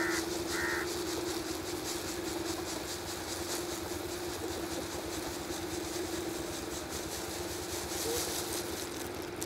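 Electric pedestal fan running with a steady hum while wheat grain is poured from a winnowing tray in front of it and patters onto the cloth below, the fan's wind blowing the chaff off the grain. There are two short high chirps right at the start.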